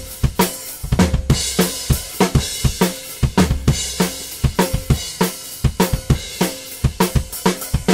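Multitrack drum kit recording playing back a simple kick and snare loop: a steady rhythm of kick and snare hits with cymbals over them. These are the original recorded drums, before sample replacement, and the kick is not a beautiful one.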